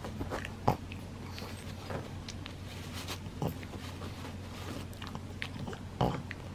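A pug chewing and tugging at a paper tissue: irregular small bites and crunches, with two louder clicks, one just under a second in and one near the end.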